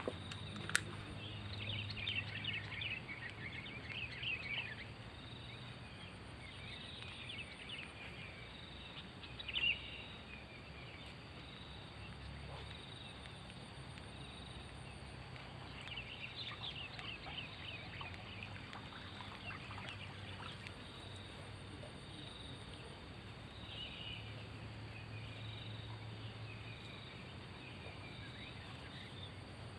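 A bird calling in bursts of rapid chirps every few seconds, over a faint steady high-pitched insect drone, with a single short knock about ten seconds in.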